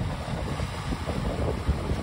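Small waves washing in and out over a beach of round mongdol pebbles, with wind rumbling on the microphone.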